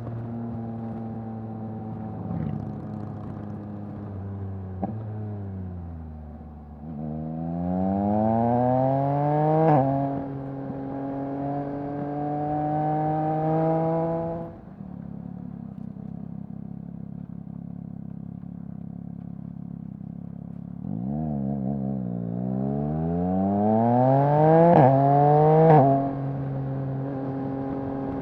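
Exhaust of a 2021 Yamaha MT-09's 890 cc inline-three through a Mivv full-system exhaust, accelerating hard twice. The pitch climbs and drops sharply at each quickshifter upshift, about a third of the way in and twice in quick succession near the end. Between the pulls the throttle is shut and the engine runs at a steady lower note.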